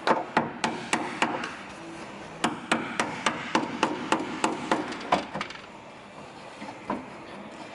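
Rapid hammer blows on a car body panel, in two runs of about three to four strikes a second with a few single knocks after: separating the drilled-out spot welds that hold a Lamborghini Gallardo's damaged quarter panel.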